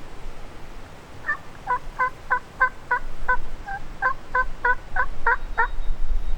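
A run of about thirteen turkey yelps, evenly spaced at roughly three a second, each note breaking downward in pitch.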